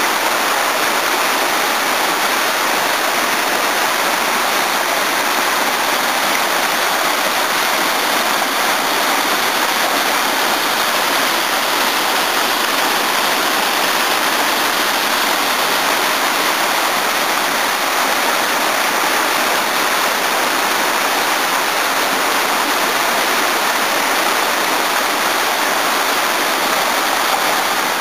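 Waterfall and rocky mountain torrent: water falling and rushing over boulders in a steady, even rush.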